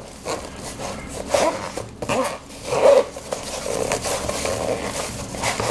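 Zipper on a fabric cooler bag being run along its track several times in uneven strokes, with rustling of the bag: a test of the slider just repaired with a string pull.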